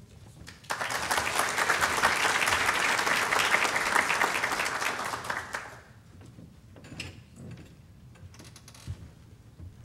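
Audience applauding, starting about a second in and dying away after about five seconds, followed by a few faint knocks and rustles.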